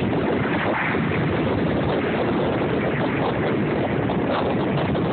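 Strong wind on the microphone over breaking ocean surf: a steady, loud rushing noise that does not let up.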